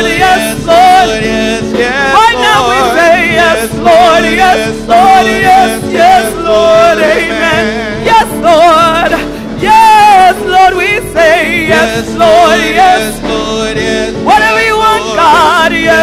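A woman singing a gospel solo with wide vibrato and sliding runs, accompanied by sustained chords on a Roland Juno-DS keyboard.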